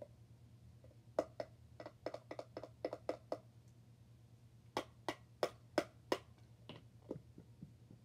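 Sharp plastic clicks and taps as a squeeze bottle of white school glue is handled upside down over a clear plastic cup to empty out leftover glue. A quick run of about a dozen clicks comes first, then a slower set of five louder ones about five seconds in.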